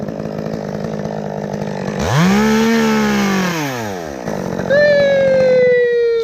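Chainsaw running, revved up to full speed about two seconds in and dropping back down about two seconds later. Near the end comes a loud, drawn-out squeal that slides slowly down in pitch.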